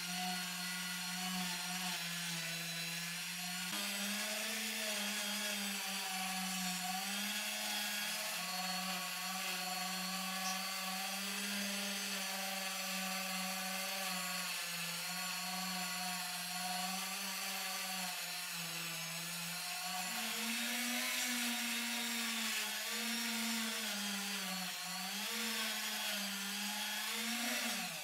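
Handheld rotary tool clamped in a vise, running steadily with a polishing wheel as brass cartridge-case lighter parts are buffed against it. Its motor whine shifts slightly in pitch now and then.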